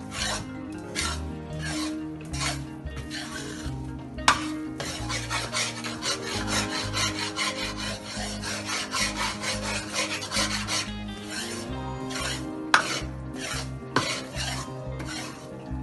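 A ladle scraping and stirring besan roasting in ghee in a metal kadai: a run of quick rasping strokes against the pan, coming fastest in the middle.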